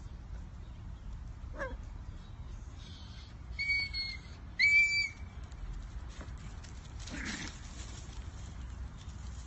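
Two short, high, steady whistle notes about a second apart, the second louder. A brief rustle follows a couple of seconds later.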